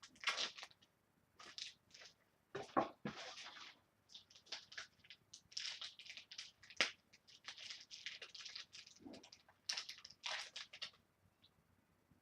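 Packaging of a toy blaster being handled, plastic and cardboard rustling and crinkling in short irregular bursts with a few sharper clicks.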